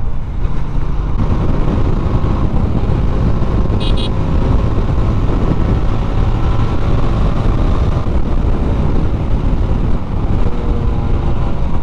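TVS Apache RTR 160 single-cylinder engine running steadily at cruising speed, under a heavy low rumble of wind and road noise on the microphone. A brief high-pitched beep sounds about four seconds in.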